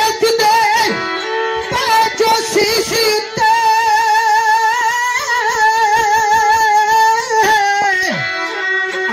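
A woman singing a Punjabi Sikh devotional song, holding one long wavering note from about three seconds in until shortly before the end, over a steady drone and drum strokes.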